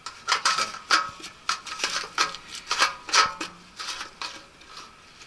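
Fuel filler cap being screwed back onto a walk-behind tractor's petrol tank: a run of irregular clicks and scrapes, about three a second, with the engine off.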